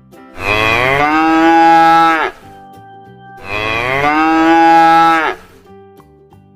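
Cow mooing twice: two long calls of about two seconds each, rising a little in pitch and dropping off at the end, with soft background music between them.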